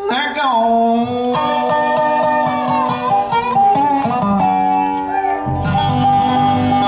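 Bluegrass band playing an instrumental passage without singing: a dobro (resonator guitar) plays sliding lead notes over strummed acoustic guitar, and the upright bass's low notes come in strongly about five and a half seconds in.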